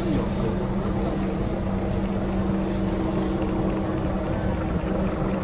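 A steady mechanical drone with a constant low hum that holds one pitch, over a rough low rumble.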